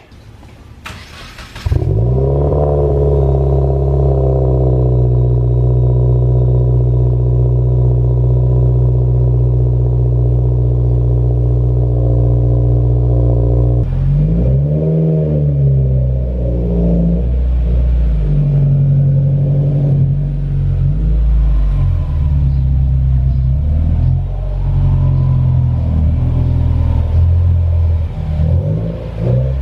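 Car engine cranked and starting about two seconds in, settling to a steady idle. Around fourteen seconds in it revs up and back down, then runs unevenly at low load while the car is moved.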